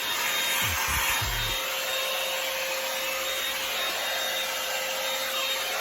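Revlon One Step hair dryer brush running: a steady rush of blown air with a constant motor whine under it.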